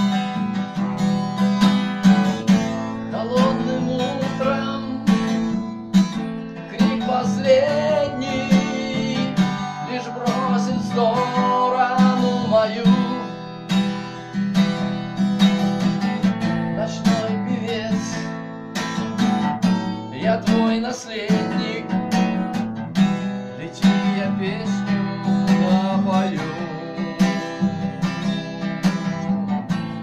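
Acoustic guitar strummed steadily in even, repeated strokes, playing an instrumental passage without words.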